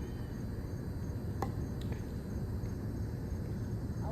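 Insects chirping steadily in a fast, even high-pitched pulse over a low rumble, with two sharp knocks about a second and a half and two seconds in.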